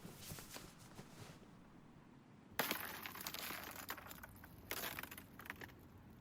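Rustling and crunching of a person getting down and lying on ice. Softer at first, then two louder bursts, one about two and a half seconds in and one about four and a half seconds in.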